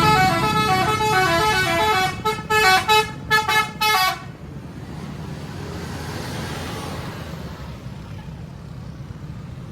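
Bus telolet (basuri) musical air horn playing a quick stepping melody for about four seconds, ending in several short blasts. After that, a low steady rumble of engines and traffic.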